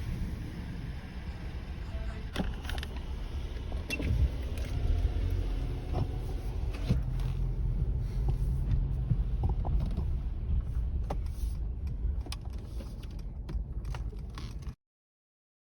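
Car heard from inside the cabin: a steady low rumble with scattered clicks and light rattles. The sound cuts off suddenly near the end.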